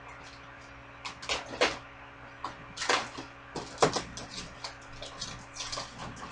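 Cardboard packaging of a toy R/C truck being cut and worked loose by hand: a string of irregular short clicks and scrapes, the strongest about a second and a half, three and four seconds in.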